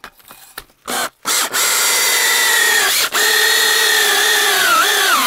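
Electric drill spinning a brass wire brush against the liner seat of a Reliant aluminium engine block. A short blip about a second in, then the drill runs steadily with a high whine, breaking briefly about three seconds in, and its pitch sags and recovers near the end as the brush is pressed in under load.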